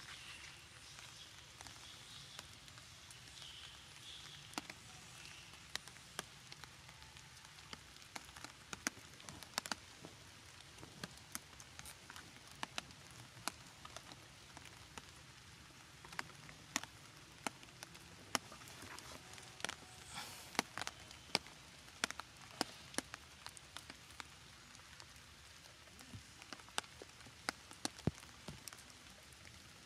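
Water drops tapping irregularly on a clear plastic umbrella, scattered sharp ticks over a faint steady hiss of light rain.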